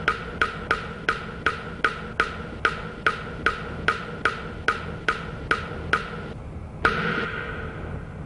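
Drops of blood dripping into a pool on a hard floor, each a short pitched plop. They come about three a second and slowly space out, stop about six seconds in, then one louder drip with a longer ring follows about a second later. A low hum runs underneath.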